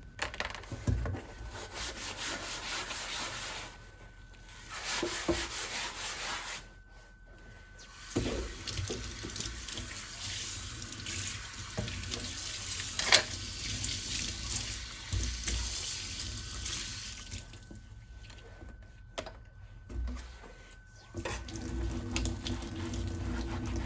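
Kitchen tap running into a sink while a chopping board and colander are rinsed, with the water shut off and turned back on a few times. A single sharp knock about halfway through.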